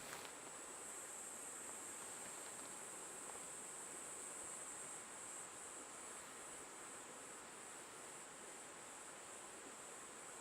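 Faint, steady high-pitched chirring of insects, which takes on a regular pulsing beat about halfway through, over a soft rustle of wind in leaves.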